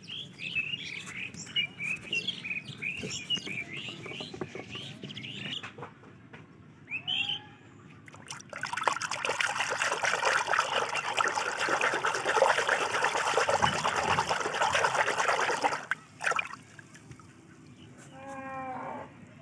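Water pouring and splashing into a plastic tub for several seconds in the middle, the loudest sound. Small birds chirp before and after it.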